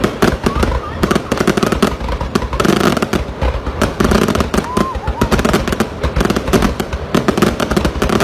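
A fireworks display going off in rapid succession: shells and crackling effects bursting in a dense, nearly continuous stream of pops and bangs.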